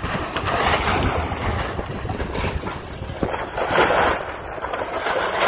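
Timber and debris of a wooden grain elevator crashing and rumbling down during demolition, in several surges.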